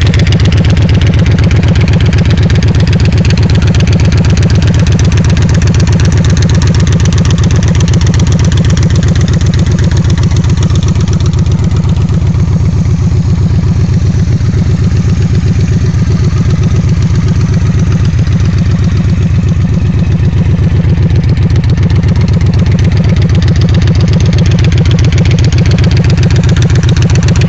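2012 Victory High Ball's V-twin engine idling through Hacker Zoomies pipes, a loud, steady, rapid train of exhaust pulses.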